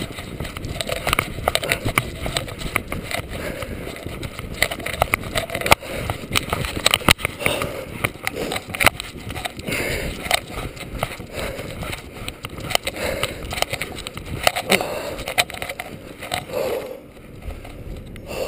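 Footsteps trudging through deep, fresh snow, with irregular crunching and the rustle of nylon clothing close to the microphone.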